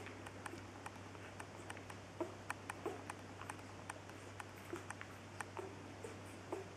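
Day-old Wäller puppies suckling at their mother's teats: soft, wet smacking and clicking, irregular, several a second.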